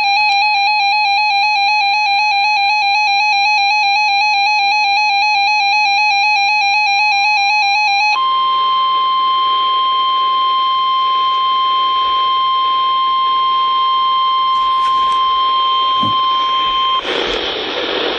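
Emergency Alert System alarm over radio: the harsh, warbling two-tone EAS attention signal for about eight seconds, then the steady single-pitch NOAA Weather Radio warning tone. The tone cuts off about seventeen seconds in, leaving radio hiss.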